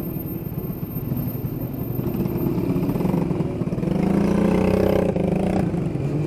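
Small motorcycle engines in street traffic give a steady low running noise. About three and a half seconds in, one close by grows louder for a couple of seconds, as if revving, then cuts off suddenly shortly before the end.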